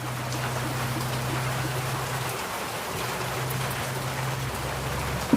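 Steady rain falling, with a steady low hum underneath and one sharp knock near the end.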